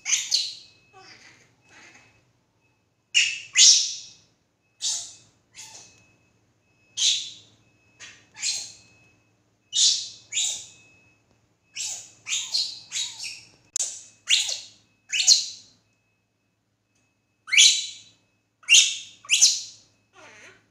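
Baby monkey giving short, high-pitched squealing cries, singly and in quick runs of two to four, with brief pauses between: angry fussing before it falls asleep.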